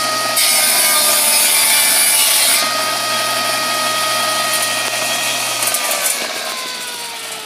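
Old table saw running with a steady motor hum and whine. For about two seconds early on the blade cuts through a wooden board, adding a loud hissing rasp. About six seconds in the saw is switched off and the blade winds down, its whine falling steadily in pitch.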